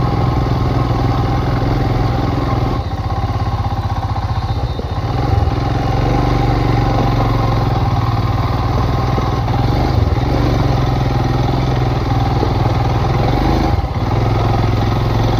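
Royal Enfield Himalayan's 411 cc single-cylinder engine running steadily as the bike is ridden over a rocky track; the engine note eases off briefly about three seconds in and again near the end.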